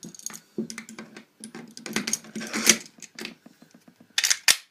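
MP-654K CO2 air pistol being handled: a run of small metallic clicks and rattles, busiest about two to three seconds in. Near the end there is a short, louder scrape as the magazine at the base of the grip is worked.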